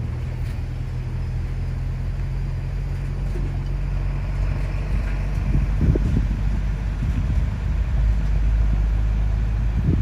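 Steady low road rumble of a moving car heard from inside the cabin, with a few uneven low surges in the second half.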